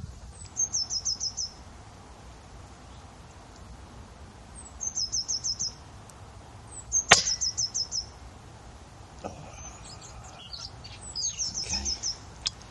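A PCP air rifle fires once about seven seconds in: a single sharp crack, the loudest sound here. Around it a bird repeats a short, quick trill of five or six high notes four times.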